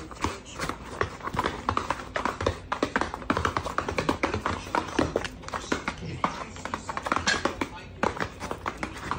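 Dog's claws clicking and tapping rapidly on a hard floor as it prances and hops on its hind legs, several irregular taps a second.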